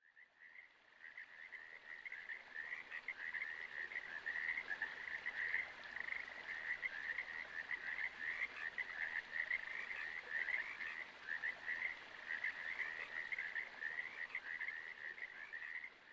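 A dense chorus of many frogs calling together, a continuous mass of overlapping trills at one steady pitch. It starts suddenly out of silence.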